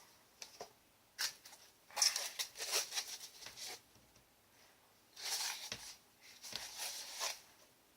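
Knife box packaging and its contents being handled: several short bursts of rustling and crinkling with light clicks, in four or five clusters.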